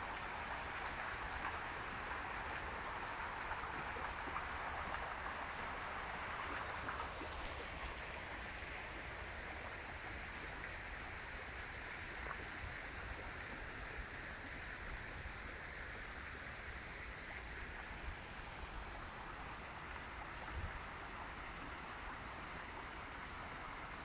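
Steady rush of falling water from a small waterfall, louder for the first seven seconds or so and then settling to a softer hiss, over a low rumble.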